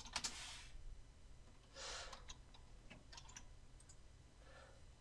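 Faint computer keyboard and mouse clicks at a desk, a few scattered taps, with a short soft hiss about two seconds in.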